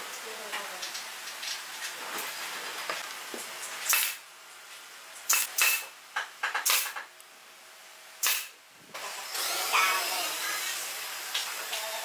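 Handheld power nailer driving nails into the glued corner of a stick frame: about five sharp shots, irregularly spaced, in the middle of the stretch, over a faint hiss.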